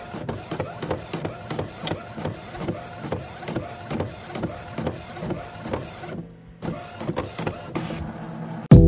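Channel-intro sound effect: a rhythmic, mechanical-sounding electronic whirring that pulses about three times a second, breaks off briefly about six seconds in, then resumes, with a loud hit near the end.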